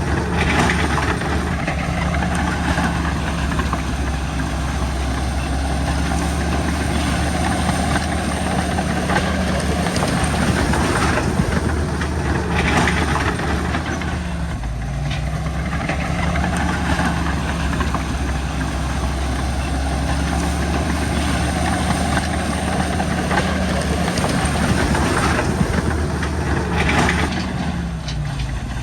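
Crawler bulldozer's diesel engine running steadily while its steel tracks clank and clatter. The engine pitch dips briefly and recovers twice, about halfway through and near the end.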